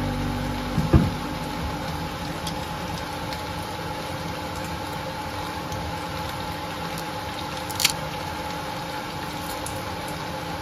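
A steady mechanical hum throughout, with a loud knock about a second in as the glass sauce bottle is set down on the stone counter, and a sharp click near eight seconds from the metal garlic press being worked.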